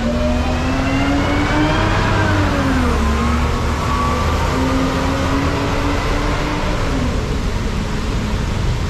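Traffic on a rain-wet road: a motor vehicle's engine note rises, drops sharply about three seconds in, climbs again and fades out about seven seconds in, over a steady hiss of tyres on wet tarmac and rain.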